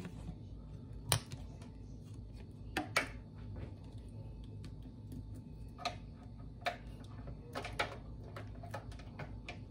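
Glass lid set on a slow cooker and its plastic lid-lock clips being handled and fastened: a handful of scattered sharp clicks and light knocks a second or two apart.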